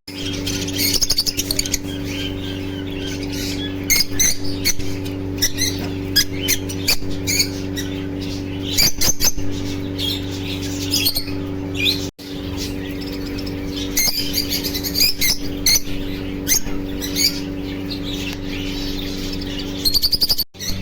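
Small pet birds chirping and twittering in quick, high, scattered calls, with an occasional squawk, over a steady low hum. The sound drops out briefly about twelve seconds in and again near the end.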